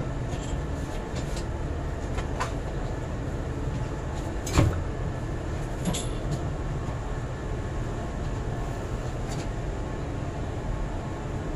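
Steady low mechanical rumble under scattered clicks and knocks from wires and plastic corrugated conduit being handled; one knock about four and a half seconds in is the loudest.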